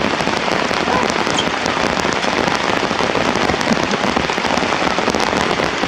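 Heavy rain falling steadily, a dense patter of many drops striking a surface.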